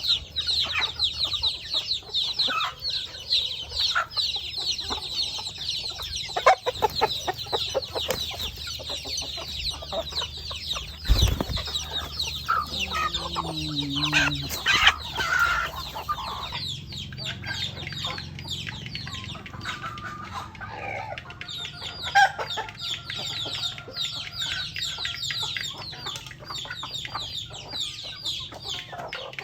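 A flock of chickens clucking and calling, over a steady dense chatter of high-pitched chirps. A single sharp knock sounds about eleven seconds in.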